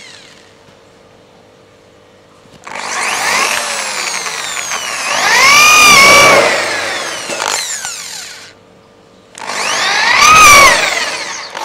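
Corded electric drill boring into a polished sheet-metal lamp trough, in two runs: a long one of about six seconds and a shorter one of about two seconds near the end. In each run the whine climbs as the motor speeds up, then falls away.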